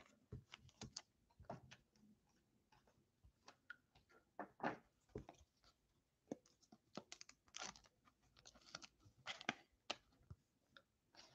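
Faint, irregular crinkles and clicks of a glossy trading card being handled and slid into a soft clear plastic sleeve.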